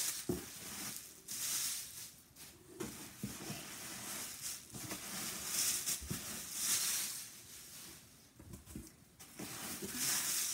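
Packing wrap rustling and crinkling in bursts as items are unwrapped and lifted out of a box, with a few soft knocks of handling in between.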